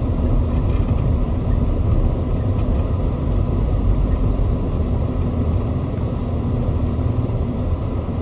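Off-road vehicle driving along a rough dirt and gravel trail, heard from inside the cab: a steady, loud low rumble of engine and tyres.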